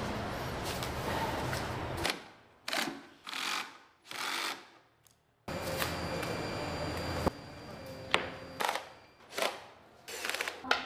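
Flat-pack furniture panels being handled on a foam sheet: short rustles and a few sharp knocks and taps. A steady low hum runs in some stretches and cuts off and returns abruptly.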